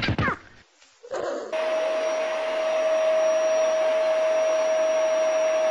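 A steady electric motor hum with a rushing-air hiss at one constant pitch, cutting in about a second and a half in and holding level.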